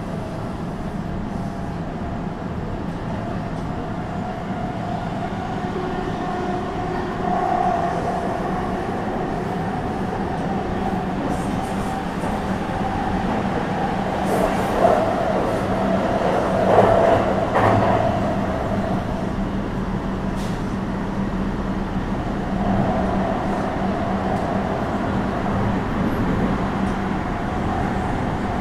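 Running sound of a JR West 321 series electric train with Toshiba IGBT traction equipment, heard from inside the car while travelling between stations. A steady rumble of wheels on rail carries a held tone and a low hum, and it grows louder for a few seconds past the middle.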